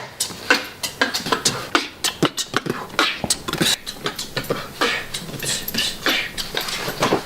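A person beatboxing: a quick run of sharp drum-like beats made with the mouth.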